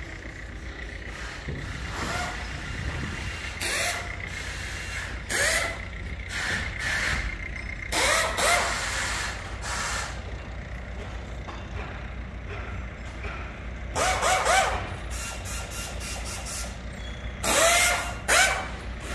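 Heavy-vehicle noise: a steady low rumble with several short, loud bursts of hiss carrying brief squealing tones.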